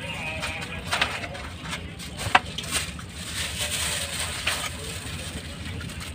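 A cleaver chopping roasted duck on a chopping block: a handful of sharp, irregularly spaced strikes, the loudest a little past two seconds in.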